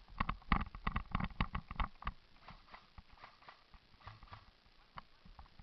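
A quick, irregular run of sharp clicks and snaps for about two seconds, then a few scattered, fainter ones.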